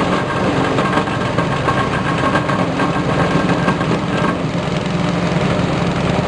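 Foam shredding machine running, driven by a small engine, with a steady mechanical drone and a high whine that drops out about four seconds in.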